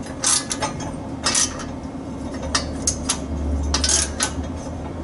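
Steel exhaust pipe and flange clinking and scraping against the truck's frame as they are test-fitted by hand, with about seven short irregular clinks. A steady low hum runs underneath.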